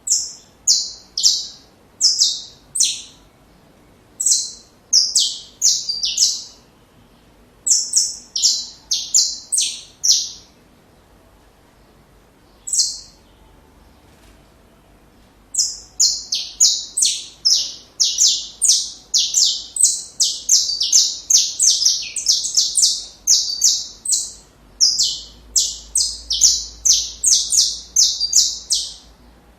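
Saffron finch (canário-da-terra) singing: quick, high notes that each fall in pitch, in several short phrases with pauses between them, then a long unbroken run of song from about halfway.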